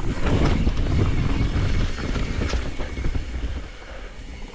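Mountain bike riding fast down rough dirt singletrack: knobby tyres rumbling over dirt, roots and rock, with the bike's frame and chain rattling in quick clatters. Loudest for the first couple of seconds, easing off toward the end.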